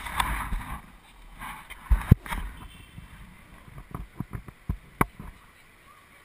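Irregular knocks and thumps with short gusts of rushing noise on the microphone. The loudest pair of thumps comes about two seconds in, another near five seconds, and smaller knocks fall in between.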